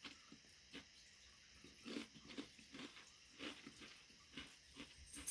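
A person chewing crunchy stoneground wheat crackers: faint crunches at an uneven pace.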